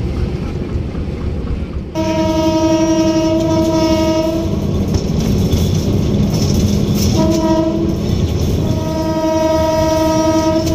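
Diesel locomotive horn sounding three blasts over the train's running rumble: a long blast about two seconds in, a short one past the middle, and another long one near the end that is still going. It is the warning horn sounded as the train approaches people and stalls beside the track.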